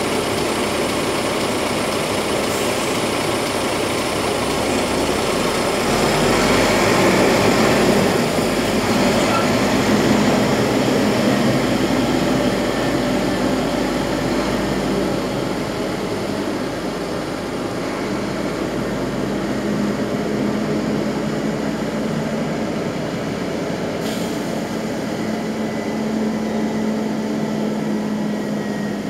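Shacman X3000 truck's diesel engine running as the truck reverses away across a yard, swelling for a few seconds and then settling to a steady hum.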